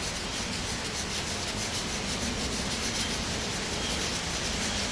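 Knife blade being rubbed in small, very light circles on a Fallkniven DC-4 pocket whetstone: a steady, soft scraping of steel on stone. This is the final pass with the stone turned crosswise, meant to give the edge more bite.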